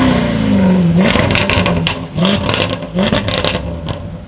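Jaguar F-Type SVR's supercharged 5.0-litre V8 coming off the throttle, its revs falling away, then a string of sharp exhaust crackles and pops on the overrun, with two short blips in revs among them.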